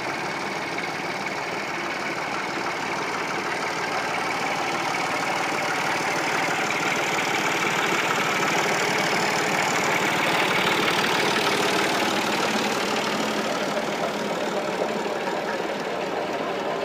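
Massey Ferguson 260 Turbo tractor's diesel engine running steadily while it drives a tubewell pump through a shaft and flat-belt pulley.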